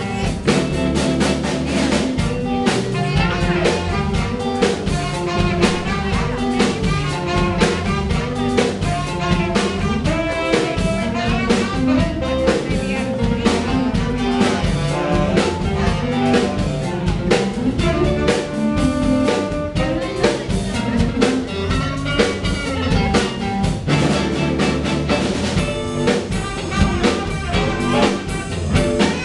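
Live band playing: guitars over a drum kit with steady drum hits, an instrumental passage with no singing.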